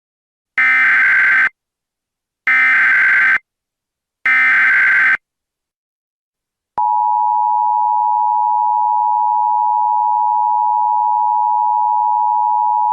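Emergency Alert System tones. First come three bursts of SAME header data, each about a second long and a second apart. About seven seconds in, the steady two-tone EAS attention signal starts and holds.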